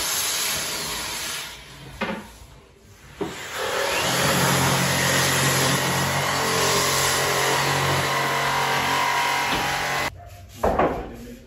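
Power tool running steadily with a motor hum, starting about four seconds in after a quieter stretch with a couple of knocks, then cutting off abruptly near the end.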